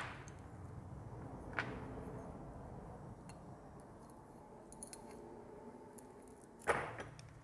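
Small metal clinks and knocks of tools and engine parts as the cam timing sprocket is fitted on a motorcycle engine under reassembly, with three sharper knocks: at the start, about a second and a half in, and near the end, over a faint low hum.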